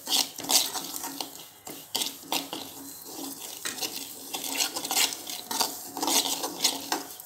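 Perforated steel ladle scraping and clinking against a steel kadai in repeated, irregular strokes while stirring semolina that is dry-roasting in it.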